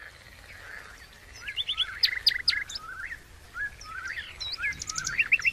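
Several songbirds chirping and calling: a busy, overlapping run of short rising chirps and quick sharp high notes.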